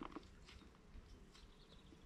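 Near silence: faint outdoor ambience, with a few soft clicks at the start and faint high chirps near the end.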